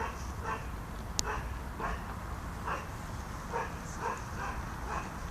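Puppy barking in a run of short yaps, roughly two a second, with a sharp click about a second in.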